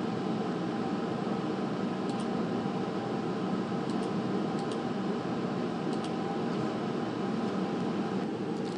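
Steady fan-like hum and hiss of room noise, with several faint mouse clicks spread through it.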